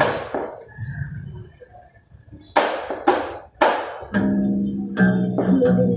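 Acoustic guitar strummed by a beginner in an introductory lesson. One strum, a pause, then three quick strums about half a second apart, and from about four seconds in a chord left ringing.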